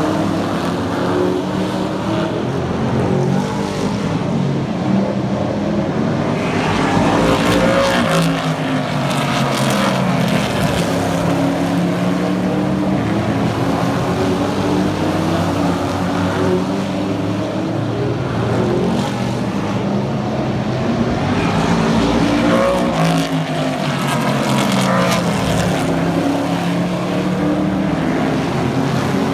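Super truck race trucks' engines running at speed around an asphalt oval. Trucks pass close about eight seconds in and again about twenty-three seconds in, each engine note rising and then dropping in pitch as it goes by.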